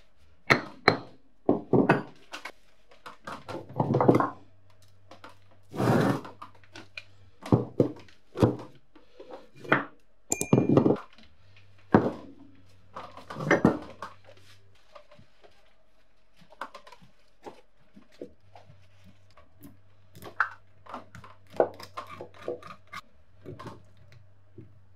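Hammer blows and metal clanks on a rusty cast-iron bullet vise as it is knocked apart and its parts handled, a string of irregular sharp knocks with short ringing. Later the knocks give way to lighter clinks and scraping.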